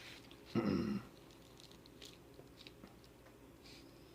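A man gives one short hummed 'mm' about half a second in. After it come only a few faint, light ticks of small handling.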